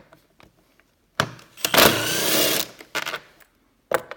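A cordless drill-driver whirring for about a second, its pitch rising slightly as it backs out a Torx screw. Sharp clicks and knocks of tools come before and after it.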